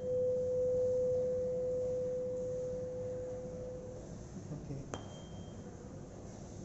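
A 512 Hz tuning fork ringing over the mouth of a glass flask used as a Helmholtz resonator: one pure steady tone that starts suddenly loud and fades away over about four seconds. Near the end the fork is struck again, a sharp tap with a brief high ring.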